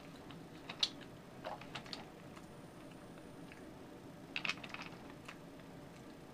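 Scattered light clicks of a monkey picking nuts out of a can and eating them, with a small cluster of clicks about four and a half seconds in.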